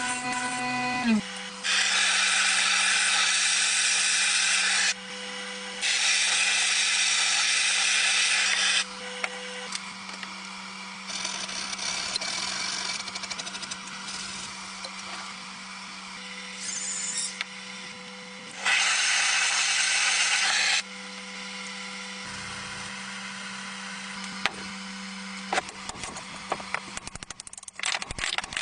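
Electric power tool motor running with a steady hum that drops slightly in pitch about a second in. It is pressed against a knife in three loud stretches of grinding hiss, each two to three seconds long, with lighter contact between them and a few clicks near the end.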